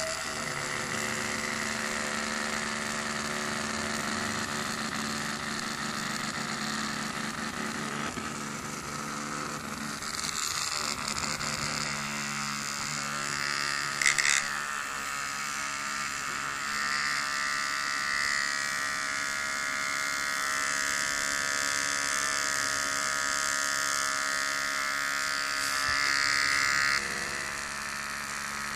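Small DC motor with an off-centre weight buzzing steadily, shaking a homemade scribbling robot so its pen tips skitter across paper. A brief louder noise about halfway through.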